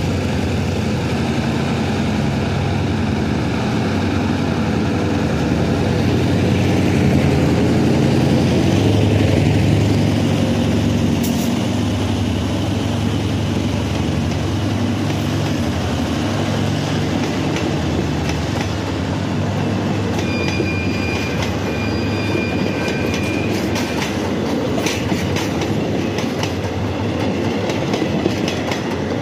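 Hitachi diesel-electric locomotive 4512 passing close with its engine running, loudest after several seconds. Its passenger coaches then roll by with a steady rumble of wheels on rail, a thin high wheel squeal past the middle, and a run of clicks over the rail joints near the end.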